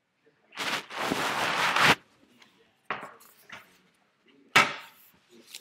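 Handling noise: about a second of loud, rough rustling, then three separate knocks, the last the loudest.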